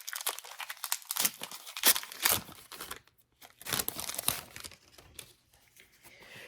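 Crinkling and tearing of a trading-card pack wrapper as it is handled and opened, in a run of short rustles over the first three seconds and another cluster about four seconds in.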